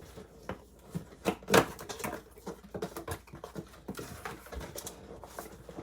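Hands handling computer parts and their packaging: a string of irregular light clicks, taps and rustles, the loudest about one and a half seconds in.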